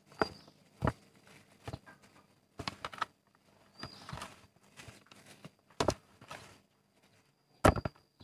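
Scattered sharp knocks and taps at irregular intervals, a few in quick clusters, the loudest near the end, over a faint steady high whine.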